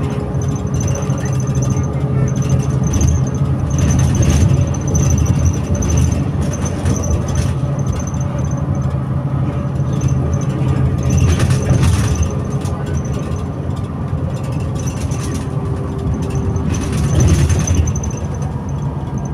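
Mercedes-Benz Conecto O345G articulated city bus's diesel engine idling with a steady hum, and a thin high-pitched squeal that comes and goes. Brief hissing rushes occur about 4 seconds in and again around the middle.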